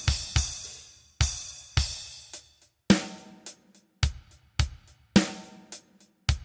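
A drum kit played on its own, with no other instruments: a slow beat of kick drum and snare, with hi-hat and two cymbal crashes in the first two seconds.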